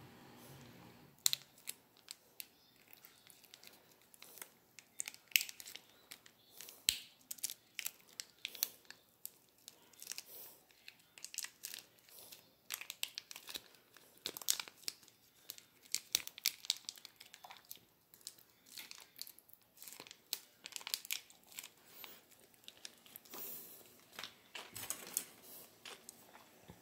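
Plastic seasoning sachet from a pack of instant noodles crinkling as it is torn and squeezed out, in many short, sharp crackles.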